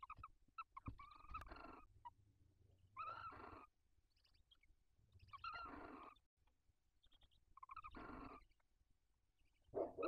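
Barn owls in the nest box giving repeated hissing snore calls. There are four or five calls, each under a second long and about two to two and a half seconds apart, some opening with a quick run of clicks.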